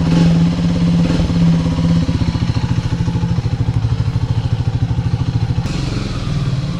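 Triumph Speed 400's single-cylinder engine idling on a cold start, a steady, even rapid pulse; near the end the sound changes, with added hiss.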